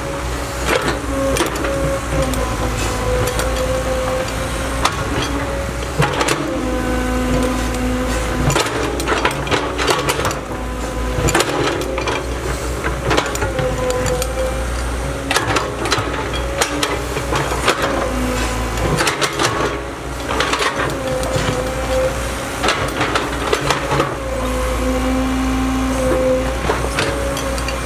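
Caterpillar 312C hydraulic excavator working, its diesel engine running steadily under load with a slightly wavering whine, while the bucket and linkage knock and clank many times as it digs into soil and roots.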